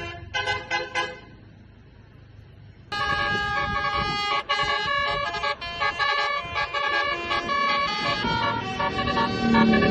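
Bus telolet horn, a set of multi-tone air horns, playing a tune of stepped notes. It breaks off about a second in and starts again suddenly near the three-second mark.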